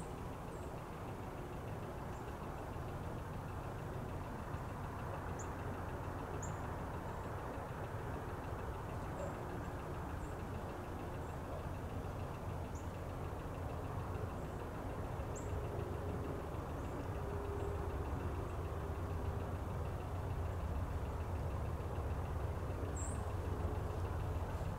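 Distant diesel locomotive rumble, low and steady, slowly growing louder as a train approaches.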